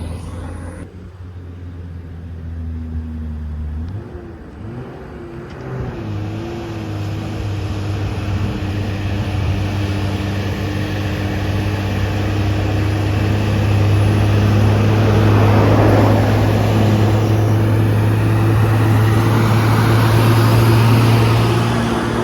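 Truck engine labouring up a steep climb. It drops off about a second in, picks up again around four seconds in, then pulls steadily on a held note that grows louder.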